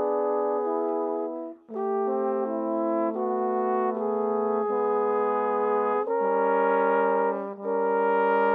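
Three trombones playing a slow largo of long held chords. The notes change in steps, with a short breath break about one and a half seconds in and a brief dip shortly before the end.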